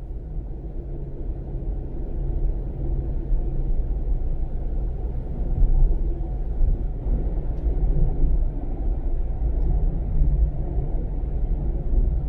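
Steady low rumble of a vehicle running, fading in over the first two seconds.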